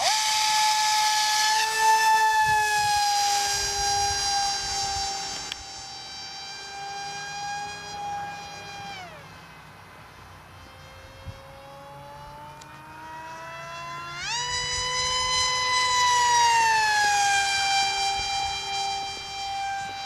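Multiplex FunJet RC pusher jet's Plettenberg Moskito brushless electric motor and small APC propeller whining at high power, high-pitched with many overtones. The pitch drops back about nine seconds in as the throttle comes down. A few seconds later it climbs again and peaks loudest, then falls in pitch as the jet flies past.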